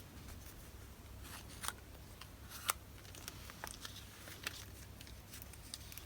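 Faint rustling of paper and packaging, with scattered light clicks and taps, as paper stationery goods are handled.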